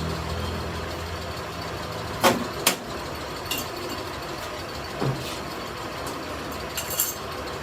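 A handful of sharp metal knocks and clanks, irregularly spaced, the loudest two close together a little over two seconds in, over a low steady engine drone that fades early on.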